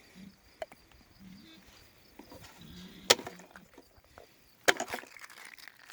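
A few sharp knocks: one loud one about three seconds in and a quick cluster around five seconds, with faint low rustling between.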